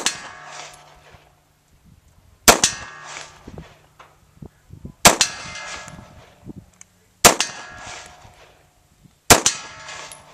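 HK P2000 9mm pistol fired in slow aimed single shots, five in all, about two to two and a half seconds apart. Each shot is followed by about a second of metallic ringing, the clang of a steel target plate being hit.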